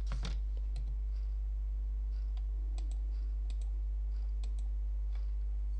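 Scattered clicks of a computer keyboard and mouse, a few sharp taps a second with gaps between, over a steady low electrical hum.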